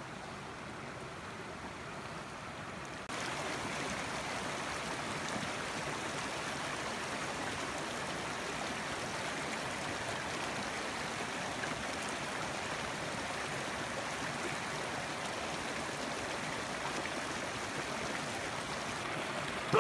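Small mountain creek running over rocks: a steady rush and babble of water that gets louder about three seconds in.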